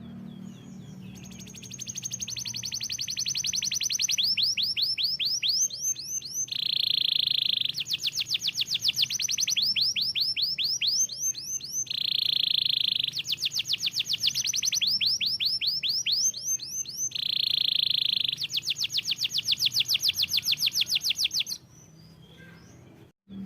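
Domestic canary singing a long song: fast trills of rapidly repeated down-sweeping notes, broken three times by a steady sustained rolling note. It stops abruptly a couple of seconds before the end, leaving a faint low hum.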